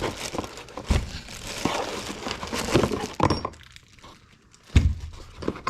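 Cardboard and packing material rustling and crinkling as items are handled in a box, with a dull thunk about a second in and a louder one near the end as things are set down.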